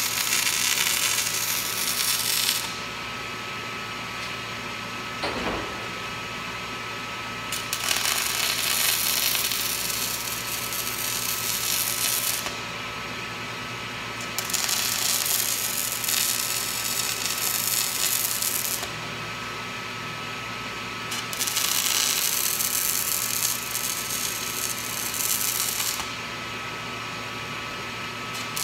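Electric arc welding on a steel post: a loud hiss of the arc that runs for several seconds, stops, and starts again, four runs in all, with a new one beginning right at the end. A steady hum carries on in the pauses between the runs.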